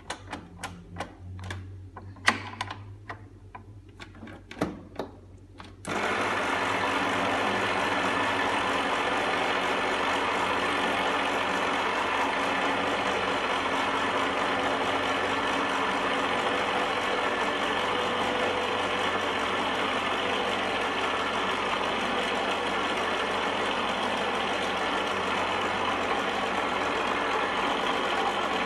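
A series of sharp clicks and knocks as parts are fitted onto an electric stand mixer, then about six seconds in the mixer switches on and runs steadily, mixing yeasted bun dough in its steel bowl.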